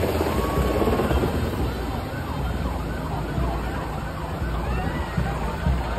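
Black Hawk helicopter rotor thudding low overhead while a large crowd screams and cheers, many high voices overlapping.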